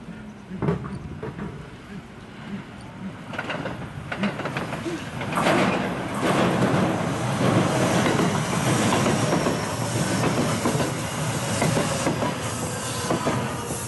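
Electric multiple-unit commuter train approaching and passing close by, its wheels rumbling along the rails and clacking over the joints, with a faint high whine on top. It grows loud from about five seconds in and eases only near the end.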